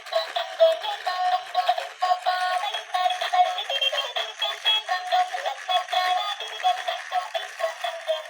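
Battery-operated dancing toy dog playing its built-in electronic song with synthetic singing through a small speaker. The sound is thin, with no low notes.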